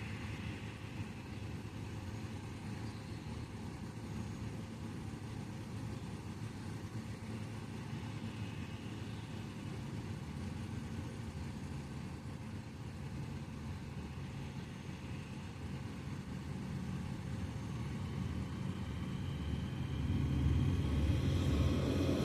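Heavy harvest machinery running with a steady low engine rumble. It swells gradually and jumps louder about twenty seconds in.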